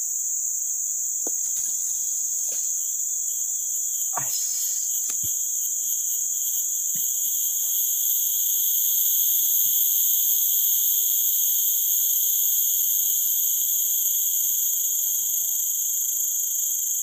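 Steady chorus of forest insects: a shrill buzzing held at several high pitches, swelling a little in the middle. A few faint knocks in the first few seconds.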